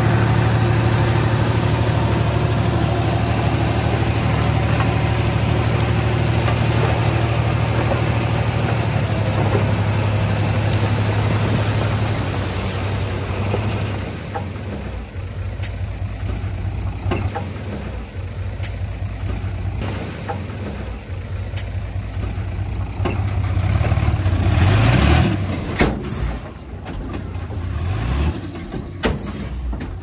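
Diesel engine of heavy earthmoving equipment, a small bulldozer or dump truck, running steadily under load. About 14 seconds in it drops to a lower, quieter run, then rises again briefly near 25 seconds, with a few scattered metallic knocks.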